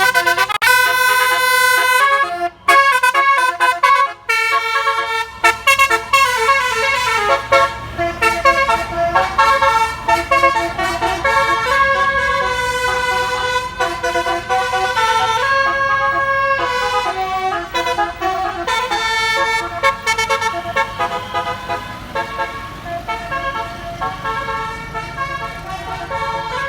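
Basuri 'telolet' multi-tone horn on a bus playing a fast melody of changing notes without a break, over a low engine rumble.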